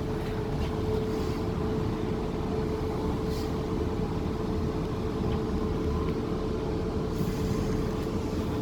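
Cab-less passenger-saloon running noise of a Class 450 Desiro electric multiple unit under way: a steady low rumble of wheels on track with one constant mid-pitched hum running through it.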